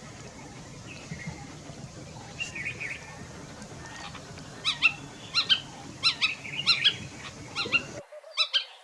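A bird giving a rapid series of short, sharp calls, starting about halfway through and repeating several times a second, over faint background birdsong.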